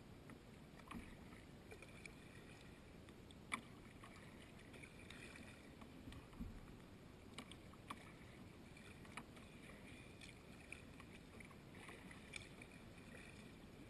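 Faint sounds of a kayak being paddled: paddle splashing and dripping, with a few light clicks and knocks, the sharpest about three and a half seconds in.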